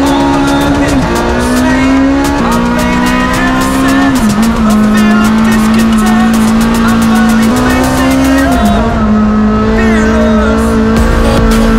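Honda Civic Type R EP3 race car's four-cylinder engine running hard, heard inside the cabin, its note climbing slowly and dropping back several times, with a song with a drum beat playing over it.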